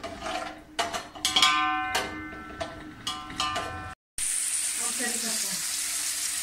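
Metal slotted spatula scraping and clanking against an aluminium pot as sliced onions are stirred in ghee, with ringing tones from the metal in the middle strokes. About four seconds in, this breaks off and a steady hiss of the onions sizzling in hot ghee follows.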